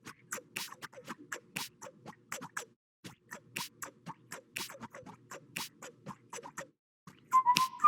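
A baby rabbit chewing its food close to the microphone: a run of small crisp crunches, about four a second, with a couple of brief pauses. Background music with a whistled tune comes in near the end.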